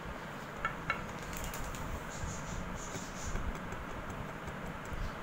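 Two light clicks a little under a second in, then a few fainter ticks, over a steady low hiss. They come from hands setting small sugar sweets on rice in a glass dish and handling the bowl they come from.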